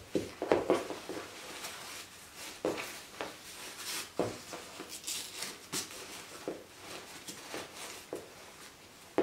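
Cloth nappy being put on and fastened by hand: irregular fabric rustling and soft handling taps as the nappy is wrapped, tucked and closed at the waist.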